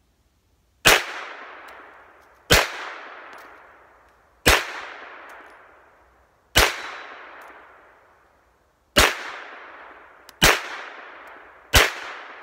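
Seven single shots from a 9 mm Luger carbine, fired one at a time at an unhurried pace of about one every one and a half to two seconds. Each sharp crack is followed by an echo that dies away over a second or so.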